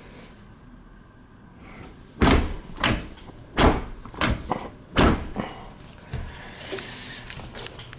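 Dishwasher door and racks being pushed and shut: five or six sharp knocks and bangs in quick succession after a quiet start, with a fainter clatter after them.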